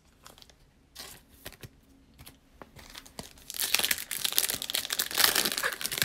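Crinkly wrapper of a 2020 Select Football card pack being torn open and crumpled in the hands. It is loud and crackly from about three and a half seconds in, after a few faint taps.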